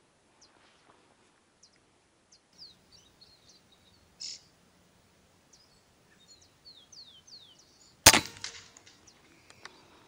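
Small birds chirping in short, falling notes, then one sharp rifle shot about eight seconds in, much the loudest sound.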